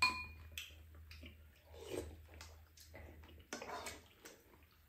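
A metal spoon clinks against a dish right at the start with a brief ring, followed by quieter spoon clicks and soft eating sounds from two people at a meal.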